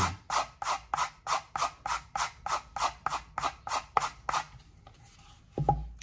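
Quick, even strokes of a single-bevel Victorinox floral knife's flat back side across a leather strop, about four a second, taking off the small burr left by sharpening. The strokes stop about four and a half seconds in, and a short low knock follows near the end.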